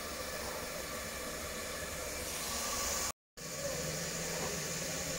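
Steady hiss of cooking on a stove, growing brighter and hissier a little before three seconds in. It is broken by a brief dead-silent dropout from an edit cut, then carries on.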